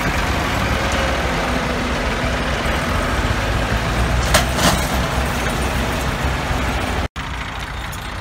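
Diesel engines of Massey Ferguson tractors running hard under heavy load, hauling a loaded trolley through wet mud. Two short sharp sounds come a fraction of a second apart about four seconds in, and the sound cuts out for an instant just after seven seconds.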